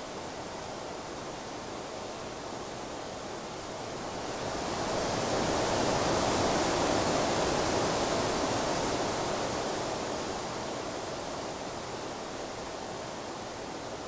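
A steady rushing noise with no tones or clicks. It swells up about four seconds in, is loudest for a few seconds, then eases back to its earlier level.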